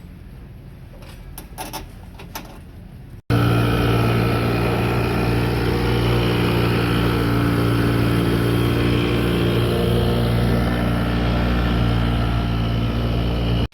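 A few light clicks, then, about three seconds in, a motor starts abruptly and runs loud and steady at an unchanging pitch.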